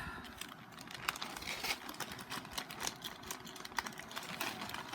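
Light clicks and rustling of small parts being handled: a sanding band being changed on a nail drill, with no motor running.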